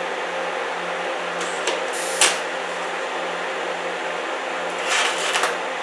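Welding arc buzzing steadily on an aluminum mower-deck pulley, with two bursts of crackling pops, one about a second and a half in and another near the end. The popping and spitting is grease and rust being boiled out of the contaminated pressed seam.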